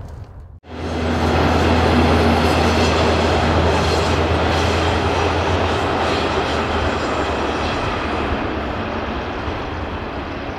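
Red double-deck electric passenger train running along the line, a steady rush of wheel and rail noise with a low hum that fades out about two-thirds of the way through. The sound starts abruptly about half a second in.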